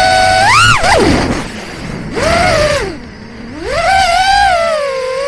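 Electric motors and props of a 4-inch FPV quadcopter (2203 3450kv brushless motors, Gemfan 4052 props) whining as the throttle changes through a manoeuvre, heard from the drone's onboard camera. The whine holds steady, jumps sharply in a brief punch just before a second in, falls away to a low hum as the throttle is cut around three seconds in, then spins back up and eases off near the end.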